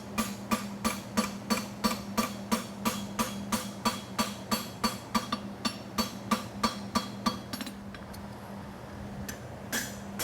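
Blacksmith's hammer striking a steel horseshoe on an anvil, about three ringing blows a second, as the edges of the shoe are hammered. The blows stop about seven seconds in and start again near the end.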